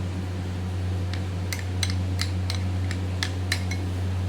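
Spoon clinking against a bowl while stirring a thin batter, about three clicks a second starting about a second in, over a steady low hum.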